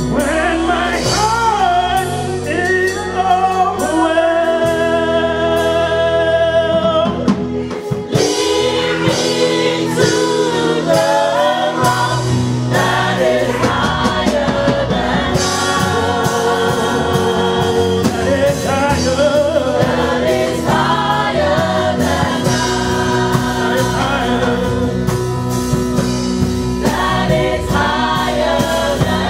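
Gospel praise and worship song: a male lead and a group of women singers sing together into microphones over a live band with a drum kit.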